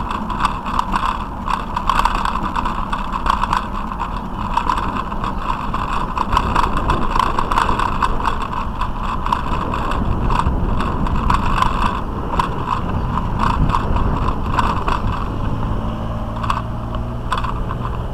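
Bicycle rolling over brick paving, with constant rapid rattling and clicking from the bike and its mounted camera jolting over the bumps, over steady rolling noise. A low hum joins in near the end.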